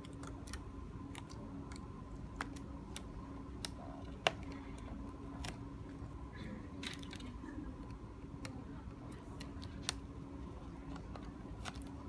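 Irregular small clicks and taps as a laptop display lid's plastic back cover and its thin cables are handled and pulled free, with one sharper click about four seconds in, over a steady low hum.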